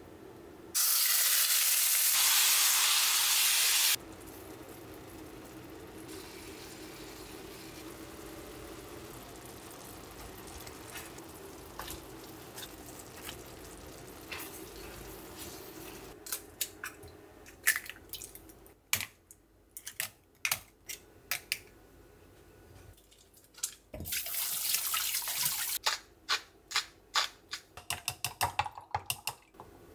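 Chicken frying in oil in a cast-iron skillet: a loud sizzle for about three seconds near the start, then a quieter steady frying. In the second half, chopsticks click rapidly against a glass measuring jug as eggs are beaten, with another short loud hiss just before the beating.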